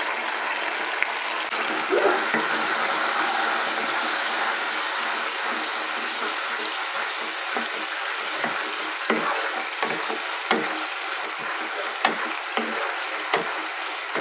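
Onion and capsicum sauce sizzling in a non-stick pan as water is poured in. From about eight seconds in, a spatula stirs it, knocking and scraping against the pan every second or so.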